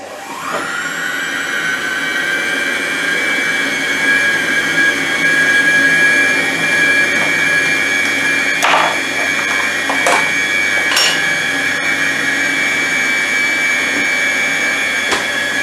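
Monsieur Cuisine Plus food processor running at speed 5, its motor spinning up over the first half second to a steady whine. It is blending flour, sugar and margarine into streusel crumbs, with a few light knocks in the middle.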